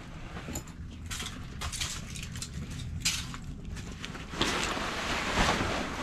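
Fabric car cover rustling as it is dragged back off the car: scattered swishes at first, becoming a louder, continuous rustle about four and a half seconds in, over a steady low rumble.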